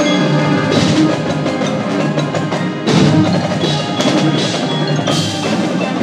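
High school marching band playing its show: held brass chords over front-ensemble mallet percussion and drums, with a louder accent about three seconds in.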